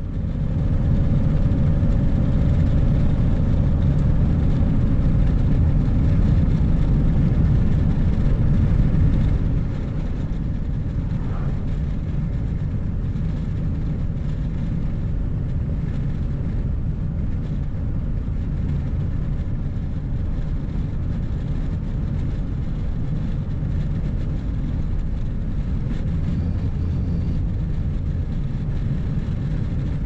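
Steady road noise of a vehicle driving at highway speed: a low rumble of engine and tyres. It becomes a little quieter about ten seconds in.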